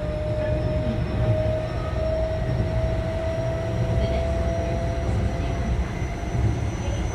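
Keio 7000 series electric train running, heard from on board: a steady low rumble from the running gear with a whine that rises slightly in pitch and fades out about five seconds in.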